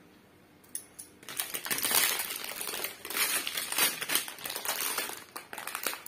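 Clear plastic packet crinkling and rustling as it is handled, with many small clicks, starting about a second in.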